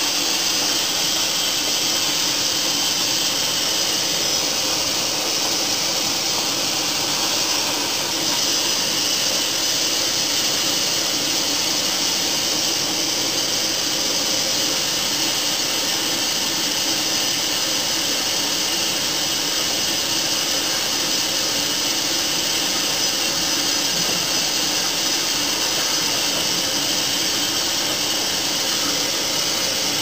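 Candy GO4 1274 LH washing machine running a delicate wash cycle as its drum turns: a steady rushing noise.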